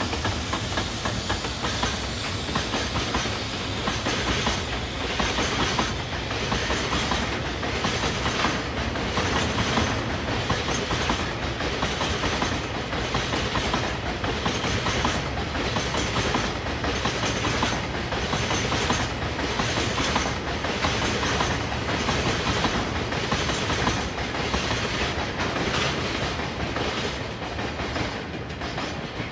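Freight train of tank wagons rolling past, its wheels clattering over the rail joints in a steady, regular rhythm; the clatter eases off near the end.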